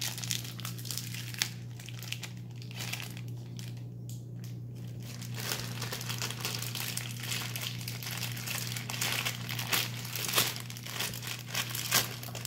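Thin plastic bag crinkling and rustling in irregular crackles as slime is peeled and pulled out of it by hand, getting busier in the second half.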